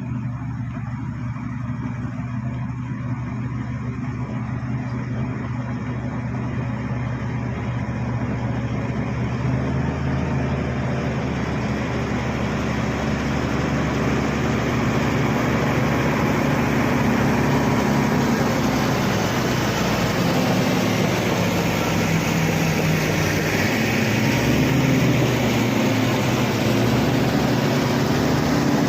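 Bulldozer diesel engine running under load, with a steady low engine drone that grows gradually louder and shifts in pitch in the second half as the machine works.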